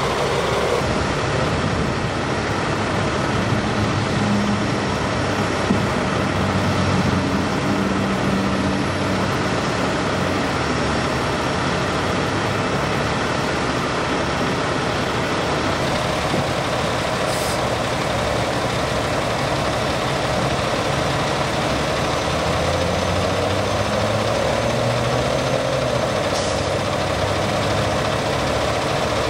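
Vehicle engine idling steadily.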